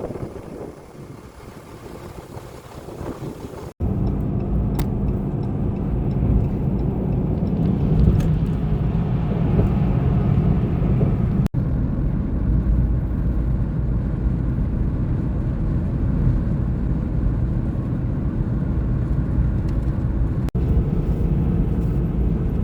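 Steady road and engine noise of a vehicle cruising on a highway, heard from inside the cab as a low rumble with a hum. For the first few seconds wind rushes over the microphone; the louder drive noise starts abruptly about four seconds in.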